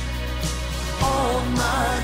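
Background music: a pop song with a steady beat, and a singing voice comes in about a second in.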